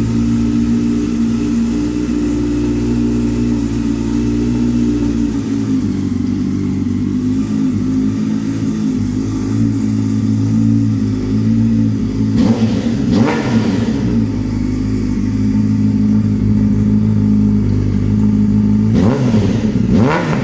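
Honda Hornet 600's inline-four engine fitted with a Devil aftermarket exhaust, idling steadily. The throttle is blipped a couple of times about two-thirds of the way in, and the engine is revved again near the end.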